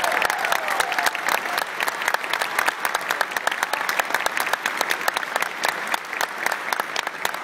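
Large banquet-hall audience applauding, with cheers and whoops over the clapping in the first second or so. The clapping thins and softens slightly toward the end.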